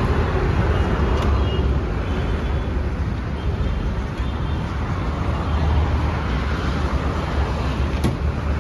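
Steady road traffic noise with a continuous low engine rumble, and two short clicks, about a second in and near the end.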